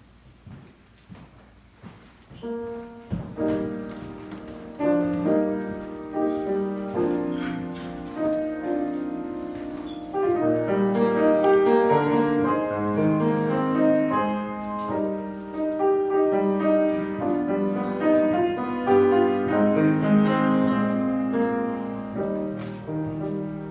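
Piano music, starting softly about three seconds in after a few faint knocks, and growing fuller and louder about ten seconds in.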